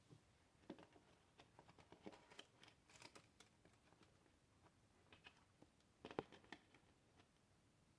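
Faint, scattered clicks and light knocks from small plastic parts being handled, with the loudest click about six seconds in.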